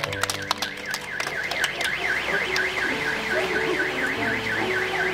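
A car alarm warbling rapidly up and down, about four sweeps a second, starting about half a second in. The last scattered claps of applause die away in the first second.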